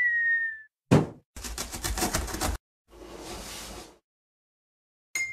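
Cartoon sound effects of an animated intro. A short high tone slides slightly down, then a sharp thud comes about a second in. A rapid rattle of about ten knocks a second follows for just over a second, then a brief hiss, and a short bright ding near the end.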